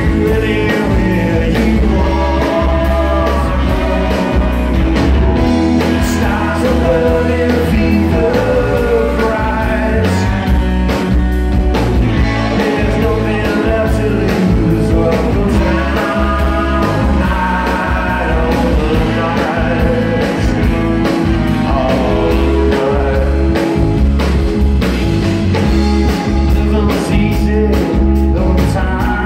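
Rock and roll band playing live and loud: a singer over electric guitars, electric bass and a drum kit, with a steady beat throughout.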